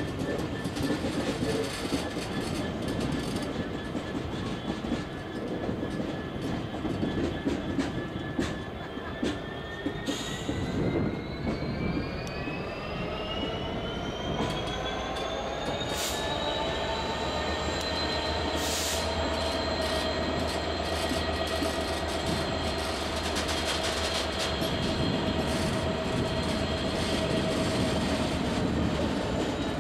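A slow-moving train of wagons and the new Merseyrail Class 777 unit being hauled past on depot tracks, rumbling and clicking over the rails. A high whine rises in pitch about ten seconds in and then holds steady, and a low hum joins it.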